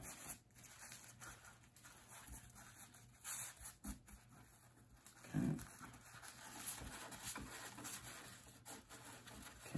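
Faint rustling of dry tobacco leaf as a cigar bunch wrapped in binder leaf is rolled back and forth by hand on a wooden board, with a few soft clicks and a brief low sound about five seconds in.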